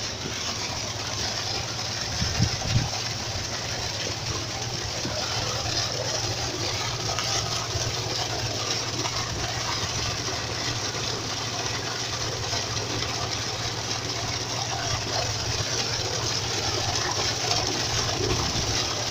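Wastewater gushing from a pipe outlet and splashing into a treatment tank, a steady rushing noise with a low hum underneath. Two brief thumps about two to three seconds in.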